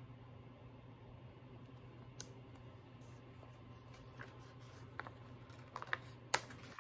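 Sticker handling: scattered light clicks and ticks of metal tweezers and a clear plastic sticker sheet against the planner page, one about two seconds in and several more in the second half, the sharpest near the end, over a low steady hum.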